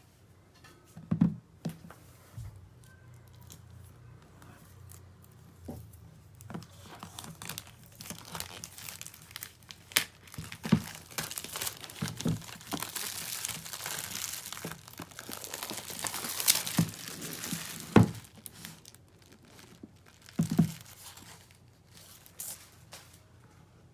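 Unboxing a JamesDonkey RS2 mechanical keyboard: its packaging crinkles, rustles and tears, heaviest in the middle, with about half a dozen sharp knocks of the box and its contents being handled.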